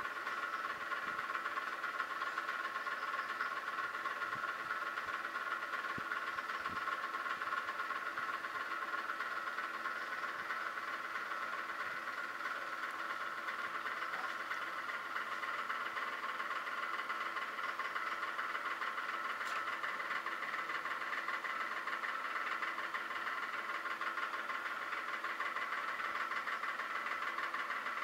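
A steady mechanical hum from a running machine, even in level and pitch.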